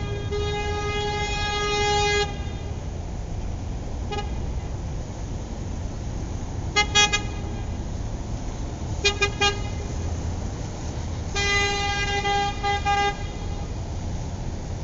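Car horn honking in a pattern. There is a long blast of about two seconds, then a single short beep, a quick pair of beeps, a quick run of a few beeps and another long blast, all at one steady pitch. A steady low rumble runs underneath.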